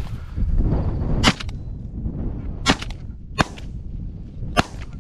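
Shotgun fired at passing Canada geese: four shots at uneven spacing, roughly a second apart.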